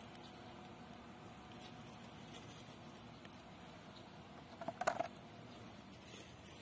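Quiet handling of a wet plastic-bottle fish trap: a faint patter, with a brief cluster of taps about five seconds in.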